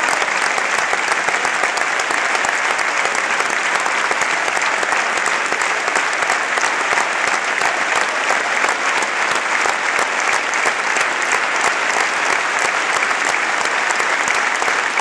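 Football stadium crowd applauding, a dense, steady clatter of clapping that holds unbroken throughout.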